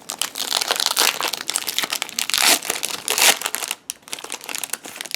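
Foil Pokémon booster pack wrapper crinkling as it is handled and opened, with dense crackling for nearly four seconds that thins to a few lighter crackles near the end.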